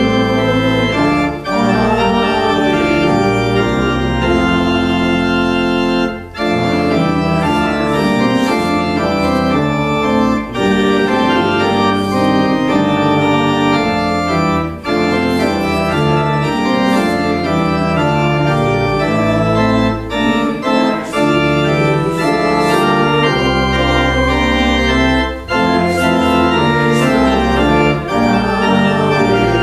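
Church organ playing slow sustained chords, pausing briefly between phrases about every four to five seconds.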